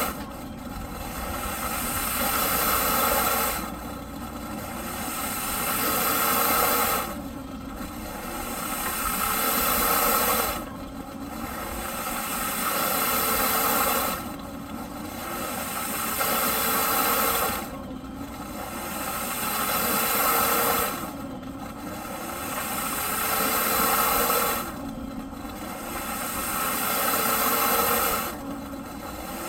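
Eureka PowerSpeed vacuum cleaner's motor running with a loud airy hiss. The sound swells over about three seconds with a rising tone, then drops off abruptly, in an even cycle that repeats about every three and a half seconds.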